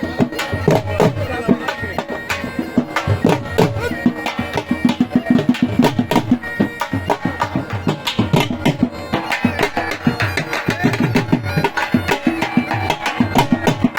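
Music with a fast, steady percussion beat.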